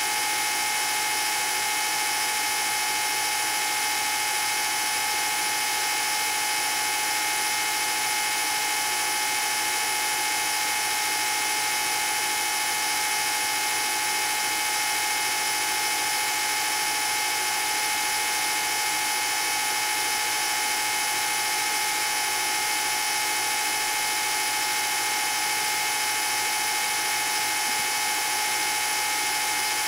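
Old film projector running: a steady mechanical whir with a constant high-pitched tone in it.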